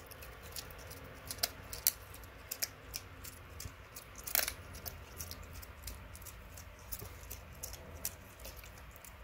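A black and white tegu crunching a giant African land snail in its jaws: irregular sharp cracks and clicks of the shell breaking.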